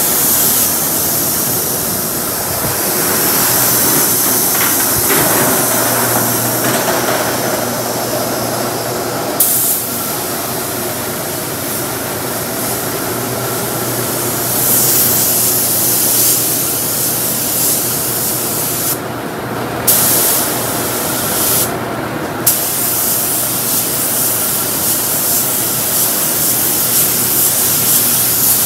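Compressed-air hiss of an Eastwood gravity-feed spray gun spraying black primer, cutting out briefly twice in the second half as the trigger is let off. A steady low hum runs underneath.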